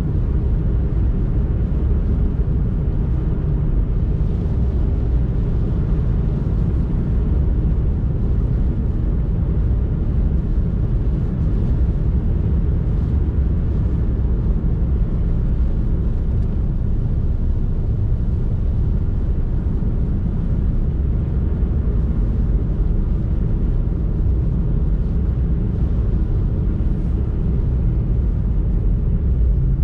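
Steady low rumble of a car driving along: road and engine noise, even throughout with no changes.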